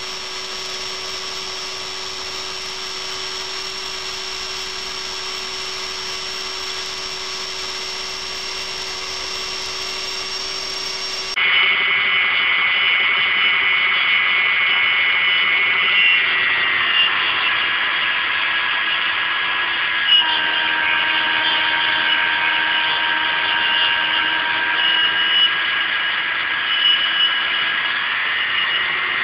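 Emco Unimat SL mini lathe running with a steady, high, multi-toned whine. About 11 seconds in the whine turns abruptly louder. In the second half its pitch sags for about ten seconds and then rises again near the end.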